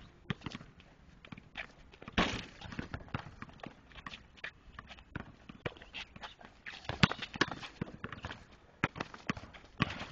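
Basketball bouncing and footsteps on a court, heard as a string of irregular thuds and taps.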